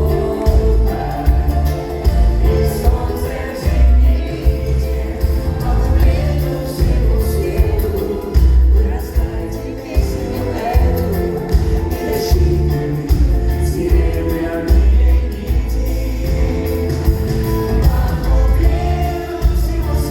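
Live pop song with a band and singing, over a steady pulsing bass beat.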